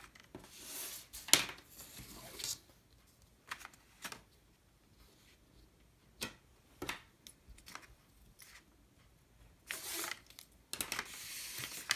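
Letter-size paper being folded and creased by hand into a paper airplane wing: quiet, scattered rustles and short crisp crinkles, with a longer rustle near the end.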